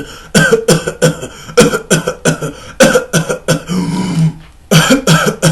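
Staccato cough: runs of short, rapid coughs, with a drawn-out whooping in-breath about four seconds in and more coughs after it. The whoop after the coughing fit is the sign of whooping cough (pertussis or parapertussis).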